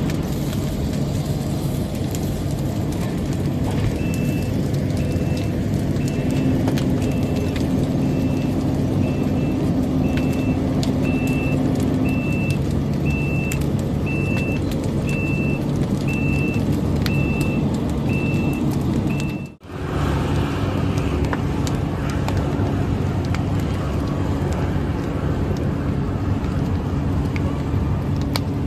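Heavy diesel engine of a Volvo EC220 excavator running steadily, with a high warning beeper sounding about once a second through the middle of the stretch. The sound cuts out for an instant just before the twentieth second, then the engine runs on.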